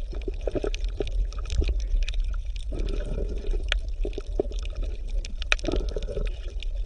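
Bubbling, gurgling water ambience with a steady low rumble and irregular small clicks and pops.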